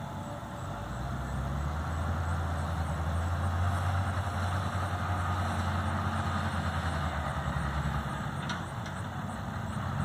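Wheel loader's diesel engine running as the loader drives, a steady low hum that grows louder about a second in and then holds.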